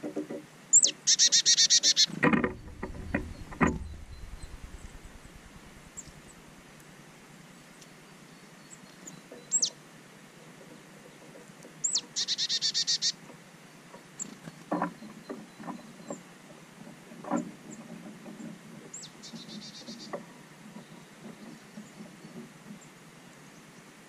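Small songbird calling: a sharp high note that slides down into a short, fast trill, given three times, with a few single high notes between. Several low thumps come about two to four seconds in, and lighter taps later.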